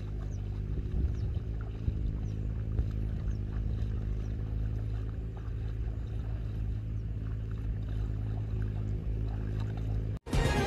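An engine running steadily at constant speed. It cuts off abruptly near the end, and louder music follows.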